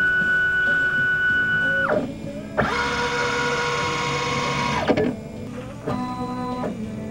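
Flatbed scanner's stepper motor driven to play a melody: a string of held, buzzy notes of different pitches, each beginning and ending with a short slide in pitch as the scan head speeds up or slows down. The loudest note falls in the middle.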